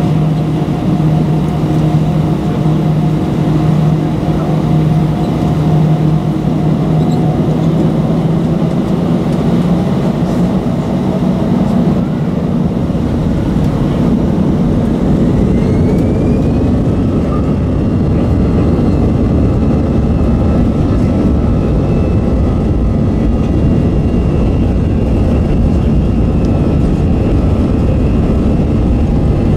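Airbus A320 cabin sound from beside the wing, where its CFM56-5B engines run. A steady hum gives way about halfway in to a rising whine as the engines spool up to take-off thrust, and the rushing rumble of the take-off roll builds.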